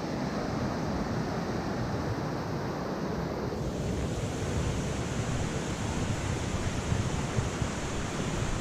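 Steady rush of flowing water from a mountain stream, its hiss turning brighter a little under halfway through.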